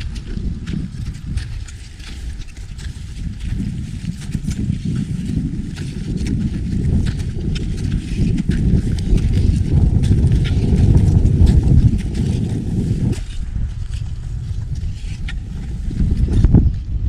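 Boots crunching steadily in snow while walking, with low rumbling wind noise on the microphone.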